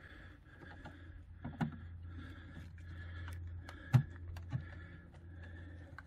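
Plastic knocks and clicks from a yellow RV adapter plug being handled and pushed into an AC outlet on a portable power station: three short knocks, the loudest about four seconds in, over a faint steady low hum.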